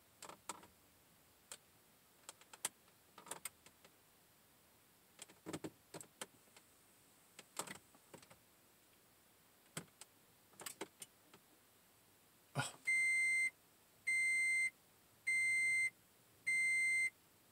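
Scattered light clicks and taps on the dashboard of a 2010 Toyota Prius. Then, after a sharper click, the car's cabin warning chime beeps steadily: five even beeps a little over a second apart.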